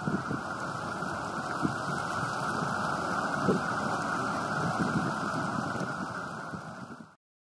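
Steady roar of Atlantic storm surf and wind, with a few louder low surges, fading out and stopping just before the end.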